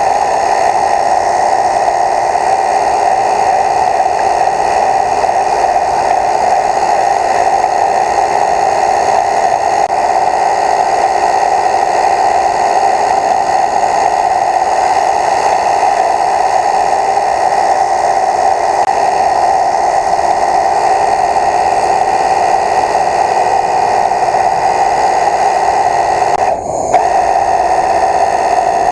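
A steady mechanical whir with a constant, even hum that does not change in pitch, briefly cutting out about 27 seconds in.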